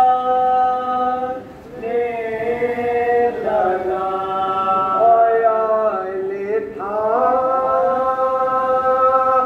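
Amplified male voice chanting a noha, a Muharram lament, in long held notes with a short pause about a second and a half in.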